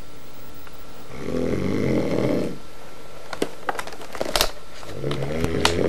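Snoring: two long, rough snores about four seconds apart, with a few sharp clicks and knocks in the pause between them.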